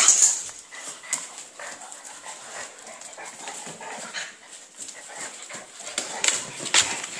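A golden retriever and a smaller dark dog tussling, making short irregular dog noises, loudest right at the start and again shortly before the end.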